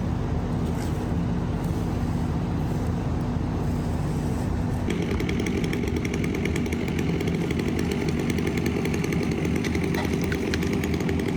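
A heavy machine's engine running steadily. About halfway through, a chainsaw joins in and runs on, cutting.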